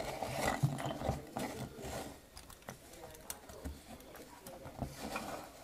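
Handling noise from a small toy monster-truck chassis being turned over by hand: irregular clicks, knocks and rubs of its rubber tyres and metal frame on the bench. The knocks bunch up in the first two seconds and again near the end; no motor is running.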